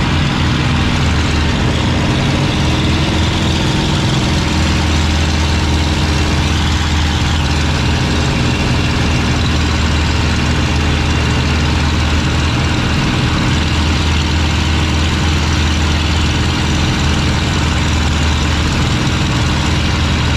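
P-51D Mustang's Packard Merlin V-12 engine running steadily in flight, heard from inside the cockpit: a constant low drone under a broad rush of air noise, unchanging throughout.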